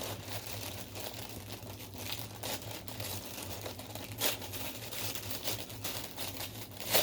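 Paper and plastic packaging crinkling and rustling as items are unwrapped and lifted out of a subscription box, with sharper crackles about four seconds in and near the end. A steady low hum runs underneath.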